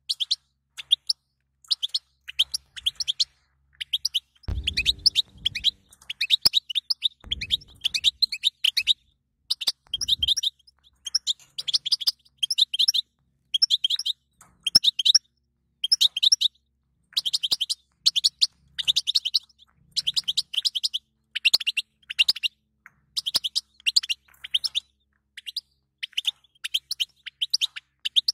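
European goldfinch singing: fast, twittering phrases of high chirps and trills, one after another with brief pauses between them. A few low bumps come in the first ten seconds.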